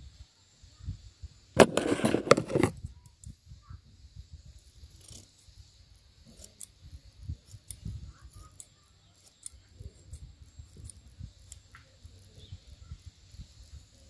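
Metal scissors snipping through a lock of long hair: a scattered string of short, crisp snips over several seconds. Before them, about a second and a half in, comes a loud burst of rustling and clicks lasting about a second.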